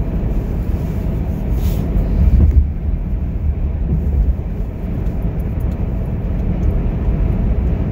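Car driving along the road: a steady low rumble of road and engine noise, swelling briefly about two seconds in.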